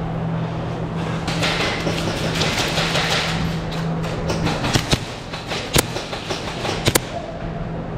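Airsoft pistol firing a few sharp shots in the second half, with a close pair near the end, over a steady low hum.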